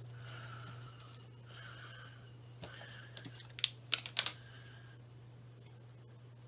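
Protective plastic film being peeled off a new laptop screen panel: soft crinkling in stretches, with a cluster of sharp clicks and snaps about three to four seconds in, over a steady low hum.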